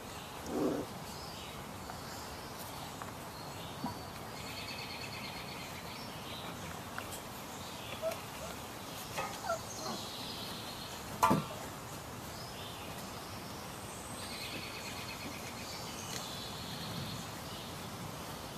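Birds calling in short trilled bursts, with a few brief high yips from Samoyed puppies. The sharpest is a quick falling yelp about eleven seconds in.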